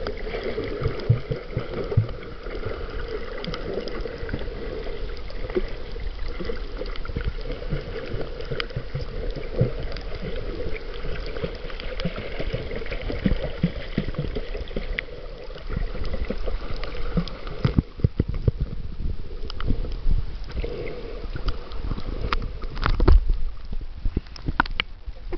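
Muffled underwater water noise picked up by a camera held underwater while snorkeling, with scattered sharp clicks throughout. In the last few seconds it grows louder and more splashy as the camera nears the surface.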